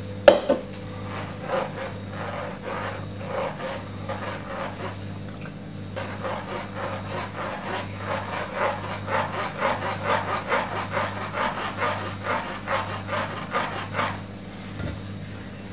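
A spoon scraping and pressing thick blended plum pulp against a stainless steel mesh sieve to strain the juice through, in quick repeated strokes, several a second, growing stronger about halfway through. A steady low hum runs underneath.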